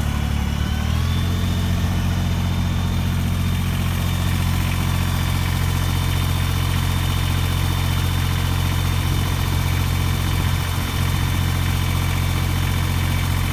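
Kubota BX23S compact tractor's diesel engine running steadily, its pitch stepping up slightly about a second in.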